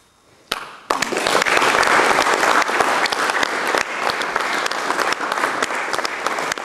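Audience applauding: a short hush, then clapping starts about half a second in and holds loud and steady.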